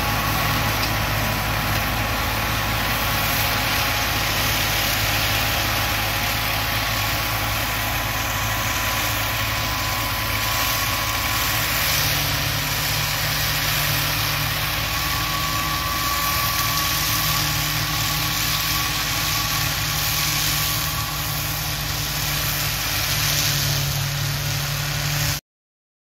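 New Holland 5620 tractor's engine running steadily under load while powering a rotary mulcher through dry crop stubble. The mulcher adds a constant rushing noise. The sound cuts off abruptly just before the end.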